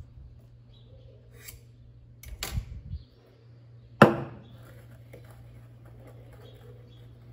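A stainless steel milk pitcher set down on a granite countertop about four seconds in: one sharp metallic knock with a short ring. A little before it comes a brief rushing hiss lasting under a second, over a steady low hum.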